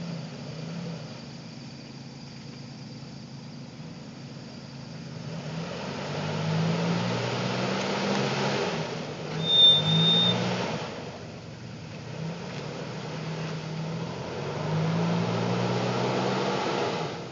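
Nissan Frontier pickup's engine revving in two long pulls as it crawls over rock, easing off in between. A brief high-pitched squeal comes about halfway through.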